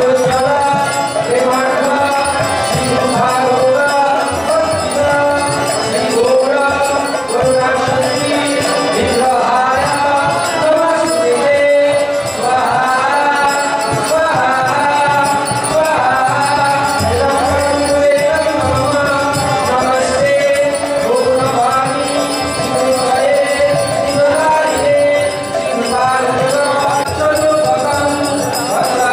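Devotional singing to music, with jingling hand percussion.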